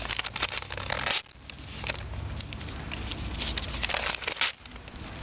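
Paper being torn by hand into small pieces for fire kindling, in bursts of ripping with quieter rustling between, the loudest at the start and again about four seconds in.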